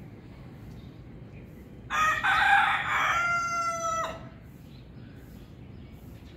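A rooster crowing once, about two seconds long, harsh at the start and ending on a held note that cuts off sharply.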